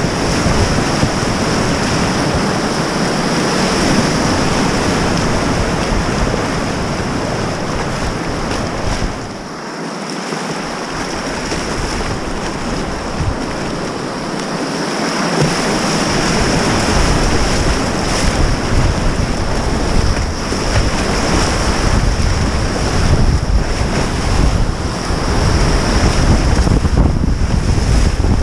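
Whitewater rapids rushing and splashing around a whitewater kayak, heard close to the water. The rush eases for a moment about ten seconds in and grows louder again in the last third as water breaks over the bow.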